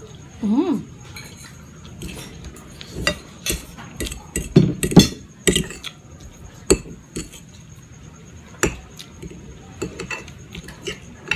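Metal fork clinking and scraping against a ceramic plate while fettuccine is twirled, a run of sharp clicks that is loudest around the middle and sparser toward the end, with eating sounds from a full mouth between.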